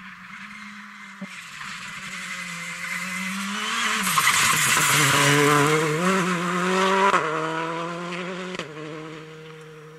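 Citroën C3 Rally2 rally car's engine approaching at speed, passing close and pulling away. The pitch dips as it slows about four seconds in, then it revs hard, with sudden drops at gear changes about seven and eight and a half seconds in. It is loudest as it passes in the middle and fades as it goes away.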